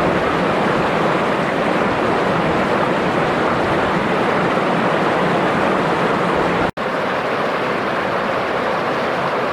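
Steady, loud rush of water pouring over a small waterfall. About two-thirds of the way through it breaks off for an instant, then goes on slightly quieter.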